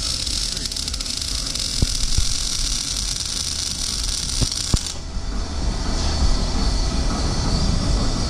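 Arc welding on the exhaust piping under a car on a lift: a steady hiss that cuts off about five seconds in.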